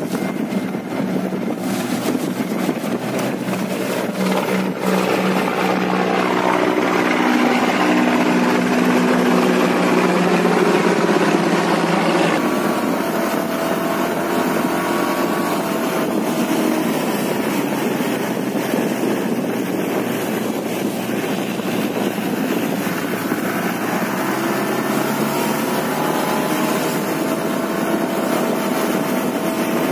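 Motorboat engine running steadily, with its pitch drifting slightly, under wind and water noise. The sound changes abruptly about twelve seconds in.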